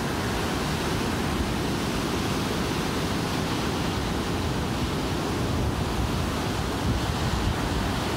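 Ocean surf breaking and washing up a beach, a steady rushing noise, with wind on the microphone.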